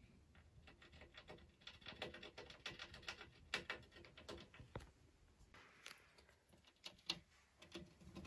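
Kinkuma golden hamster gnawing at its cage: faint, rapid scraping bites in bursts, busiest a couple of seconds in, then thinning to a few isolated clicks.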